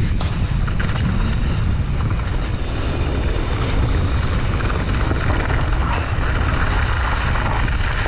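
Wind buffeting the camera's microphone as a mountain bike rolls downhill, a steady heavy rumble, with the tyres rolling over dirt and gravel and a few small knocks from the bike.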